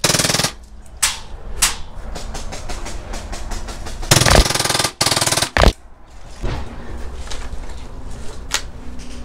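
Action Army AAP-01 gas blowback airsoft pistol firing full-auto bursts: a short rattling burst at the start, a longer, louder burst about four seconds in and a brief one just after, with scattered single sharp cracks in between.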